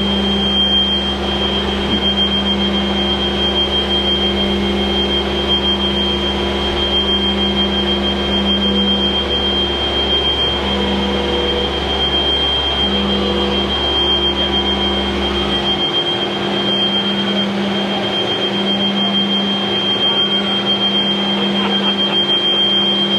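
Ground equipment running beside a parked Avro Vulcan: a steady machine hum with a constant high whine over it. The deepest part of the hum cuts off about two-thirds of the way through, while the hum and whine carry on.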